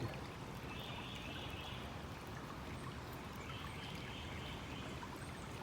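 Creek water running steadily, a faint even rushing that brightens into a higher hiss twice.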